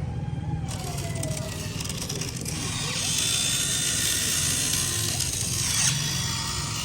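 Small electric motors and gears of a radio-controlled excavator whirring with a fast low buzz and a ratcheting rattle. About three seconds in it gets louder, with a harsher hissing edge.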